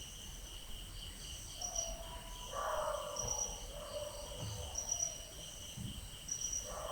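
Crickets chirping steadily in a night ambience, with a distant animal call rising out of it twice: once about two and a half seconds in, lasting about a second, and again at the very end.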